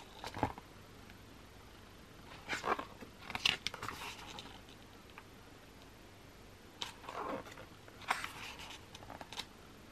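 Pages of a hardcover album photobook being turned by hand: paper swishes and rustles in a few separate clusters, with quiet stretches between.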